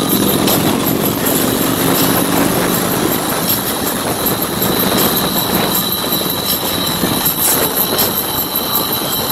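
Steady loud road noise of riding at highway speed in a group of motorcycles: engines running under wind and tyre rush, with a thin steady high whine.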